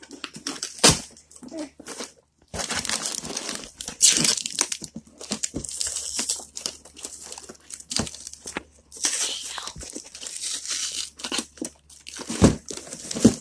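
Plastic packaging being handled and unwrapped: long stretches of rustling and crinkling, with a few sharp clicks.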